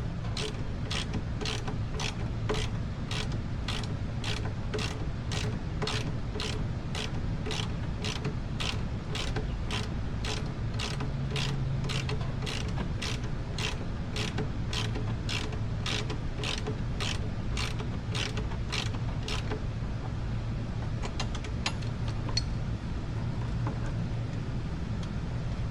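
Ratchet wrench clicking steadily, about two clicks a second, as a shock mounting bolt is loosened; the clicking stops about 19 seconds in, with a few fainter clicks after. A steady low hum runs underneath.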